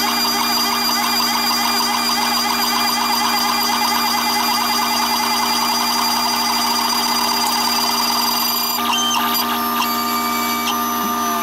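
CNC router spindle running at a steady pitch while its end mill cuts a wooden knife-handle blank, with a rapid warbling cutting noise over the spindle tone. About nine seconds in the warbling stops, leaving the spindle's steady whine.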